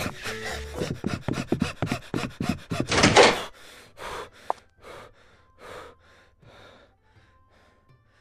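Cartoon sound effects: a quick run of knocks and thuds, a loud rushing burst about three seconds in, then a few slow, heavy panting breaths that fade away.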